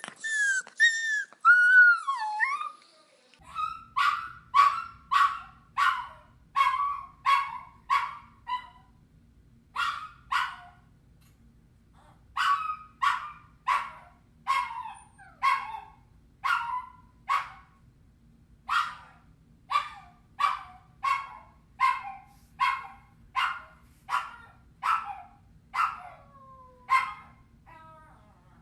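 Puppy crying: a long wavering high whine at first, then a string of short, high yelping whimpers about two a second, broken by a few brief pauses, over a faint steady low hum.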